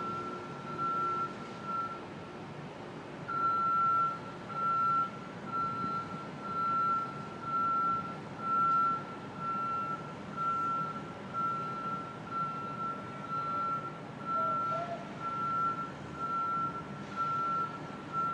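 Construction equipment's backup alarm beeping: a single high tone repeating about once a second, with a pause of under two seconds near the start, over a steady background rumble.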